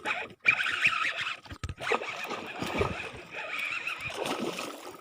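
Water splashing and churning as a hooked giant snakehead (toman) thrashes at the surface during the fight.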